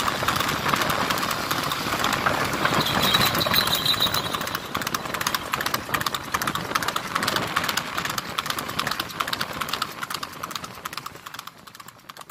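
Rapid hoofbeats of a horse pulling a two-wheeled racing cart at speed on a paved road, over a steady rush of noise. The sound fades away over the last couple of seconds.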